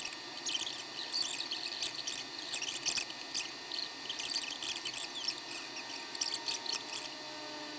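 Gas burner running under a large earthenware donabe of rice that is heating toward the boil, with irregular light crackling and ticking from the hot pot.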